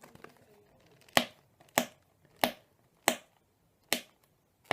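Cardboard and plastic packaging of a toy drone box being forced open, giving six sharp separate snaps spaced a little under a second apart.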